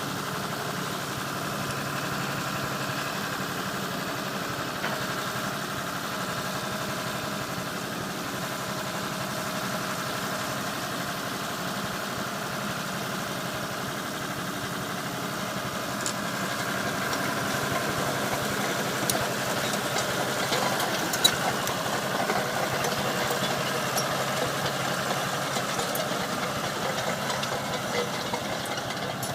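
Cat D3C XL crawler dozer's diesel engine idling steadily. From about halfway it grows a little louder and rougher, with scattered sharp clicks and one louder knock.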